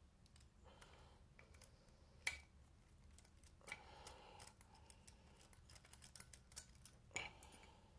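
Faint handling sounds from working on the fan motor: scattered small clicks, two sharper knocks about two and seven seconds in, and short bursts of scraping or rustling.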